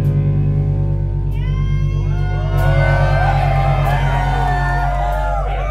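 Live rock band holding a loud, sustained low chord on guitars and bass. From about a second in, high wailing tones glide up and down over it.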